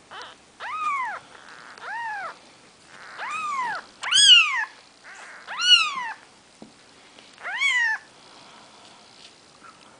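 Four-day-old Maine Coon kittens mewing: six high, thin cries over about eight seconds, each rising then falling in pitch, the loudest two in the middle.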